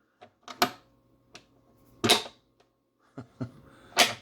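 Sharp clicks and knocks of a magnetic cabinet lock being worked: the magnet snapping up and the latch dropping to lock. The two loudest knocks come about two seconds in and near the end.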